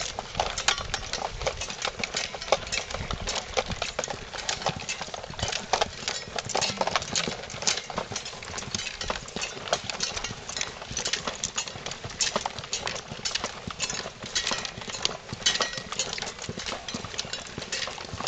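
Footsteps of several people walking on a dirt path, with the clatter and rattle of carried packs and gear: a dense, irregular run of clicks and knocks, several a second.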